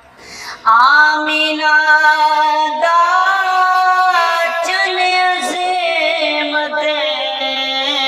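A young man singing a naat, a devotional song in praise of the Prophet Muhammad, solo into a handheld microphone in a high voice. After a brief pause at the start he comes back in under a second in and sings long held notes with a wavering, ornamented pitch.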